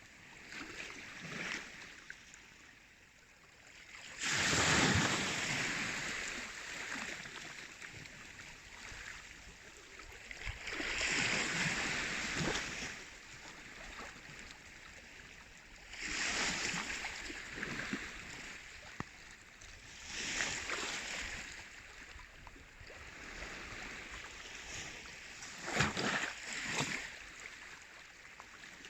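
Baltic Sea waves washing in, each swell of surf rising and fading about every five seconds, with a few sharp splashes near the end.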